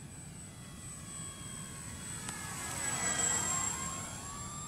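Foam RC model of a GA8 Airvan flying past, its motor and propeller whining. The sound swells to its loudest about three seconds in, then fades with a slight drop in pitch.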